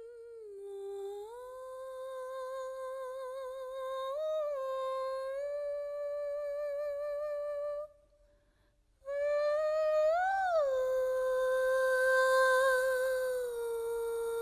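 Wordless humming of long held notes with a wavering vibrato and a few slides up and down in pitch. It breaks off for about a second near the middle, then carries on.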